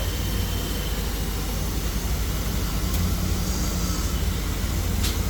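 Dual-head CO2 laser cutting machine's installation running: a steady low hum with an even rushing hiss from its air blower and air-assist compressor.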